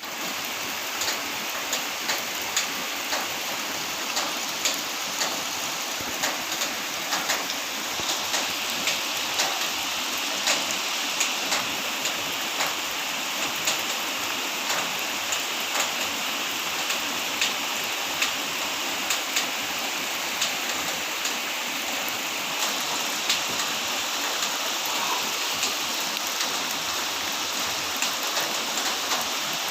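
Rain falling: a steady hiss with many sharp drop hits, the loudest about one or two a second.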